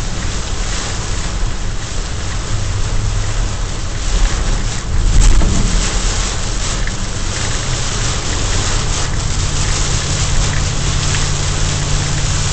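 Heavy rain beating on a moving car's windshield and roof, heard from inside the cabin over steady engine and tyre noise. A louder rush about five seconds in.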